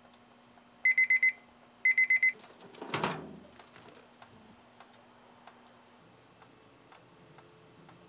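Presto digital kitchen timer going off as its countdown reaches zero, marking the end of the soil-steaming time: two groups of four rapid high-pitched beeps about a second apart. About three seconds in, a short, quieter scraping rustle follows, falling in pitch.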